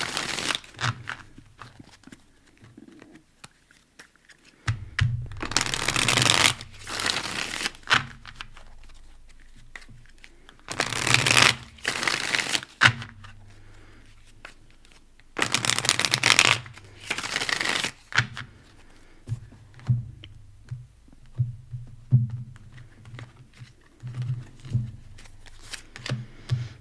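A deck of tarot cards being shuffled by hand: three rustling shuffles of about two seconds each. These are followed by a run of light clicks and taps as cards are drawn from the deck.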